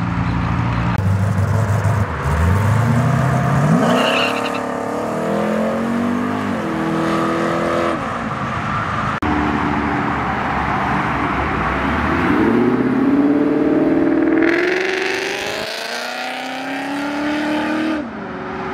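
Performance car engines accelerating hard away. Each time the revs climb, then drop with a quick upshift and climb again, in two separate pulls: one starting about a second in and another around twelve seconds in.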